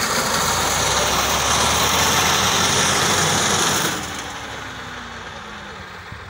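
Tractor engine running under load as it drives a front-mounted reaper through standing wheat, loud and close at first. About four seconds in the sound drops to a more distant level, and the engine note falls slowly.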